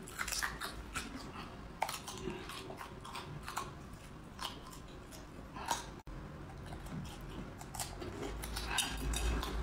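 Close-up biting and chewing of raw garlic cloves: crisp crunches and mouth clicks at irregular intervals, mixed with the papery crackle of garlic skin being peeled by fingers.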